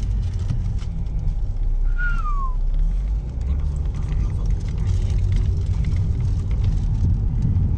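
Steady low rumble of a car heard from inside the cabin, with a short falling squeak about two seconds in.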